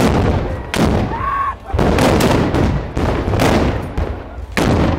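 Carnival black-powder muskets firing: a rapid run of six or so loud blasts, each trailing off, roughly half a second to a second apart.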